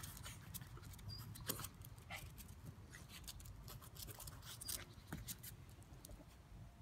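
Two dogs play-wrestling on stone paving: faint scuffling with scattered short scratches and clicks throughout.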